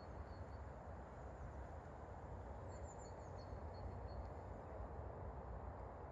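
Faint outdoor ambience: a steady low rumbling noise with a few brief, high-pitched bird chirps in two small clusters, just at the start and again around three seconds in.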